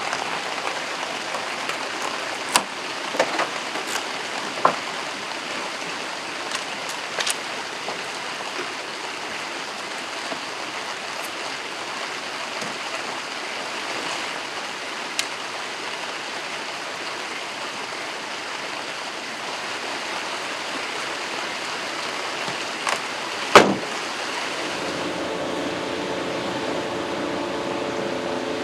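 Steady rain falling, with scattered drips and clicks and one sharp knock a little before the end. A few seconds before the end, a steady mechanical hum made of several tones sets in over the rain.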